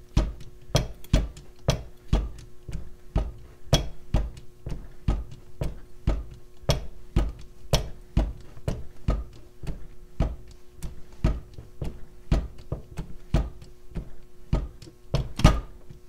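18-inch hydraulic bolt cutter being worked, its blades biting into a 16 mm steel U-lock shackle: a regular run of knocks and clicks, about two to three a second, over a faint steady hum. A louder crack near the end is taken to be the shackle breaking.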